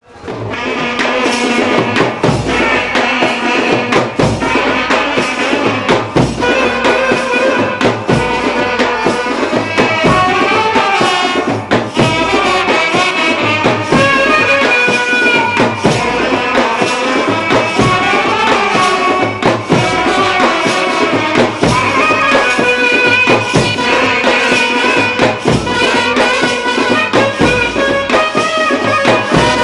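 Indian street brass band playing a tune, the melody led by two saxophones, with trumpets and a steady drum beat underneath.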